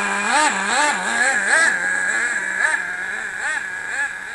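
Small nitro glow engine of an RC sprint car idling, blipped up and back down several times in quick light throttle stabs, busier in the first couple of seconds, then settling to a steady idle. The engine is freshly installed and being broken in.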